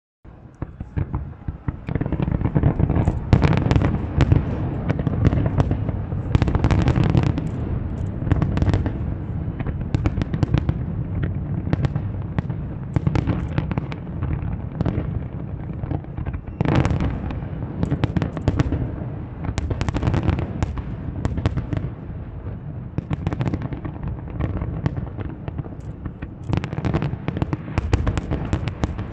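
Fireworks display: dense, overlapping volleys of shell bursts, sharp cracks over low booms, building within the first two seconds from a faint start and then going on without a break.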